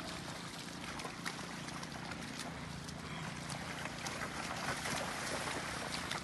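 Water pumps running steadily to drain floodwater, a continuous low hum with watery noise over it, slightly louder about four seconds in.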